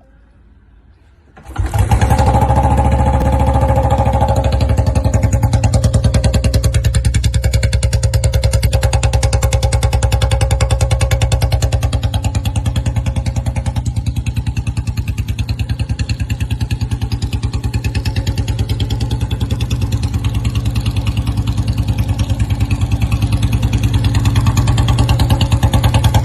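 Royal Enfield Bullet 350's single-cylinder engine running steadily, cutting in about a second and a half in, with an even, rapid beat of exhaust pulses.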